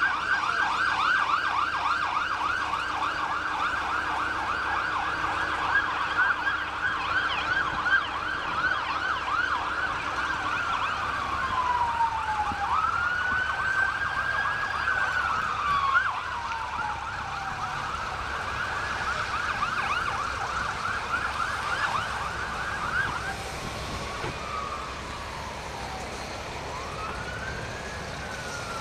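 Electronic emergency-vehicle siren switching between a fast yelp and a slow rising-and-falling wail: it yelps for about the first ten seconds, wails, yelps again, and wails more faintly near the end.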